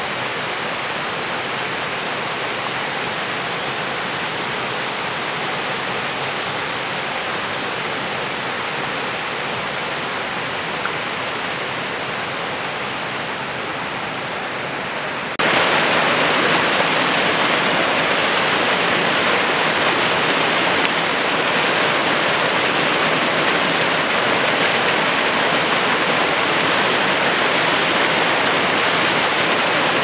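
Mountain stream rushing over moss-covered boulders in small cascades: a steady rush of water that turns abruptly louder about halfway through.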